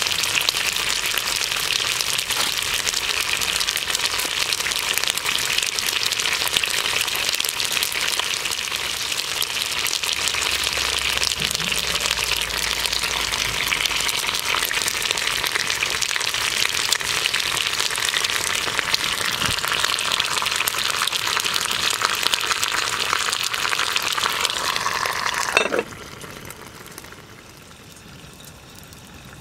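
Food frying in a hot pan: a steady sizzle with fine crackles that cuts off suddenly near the end.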